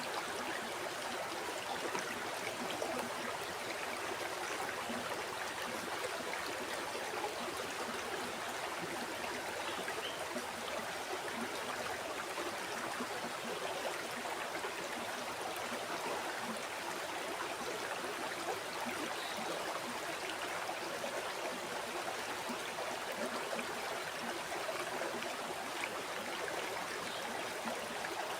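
River water flowing steadily over stones, a continuous rushing and babbling with no pauses or changes.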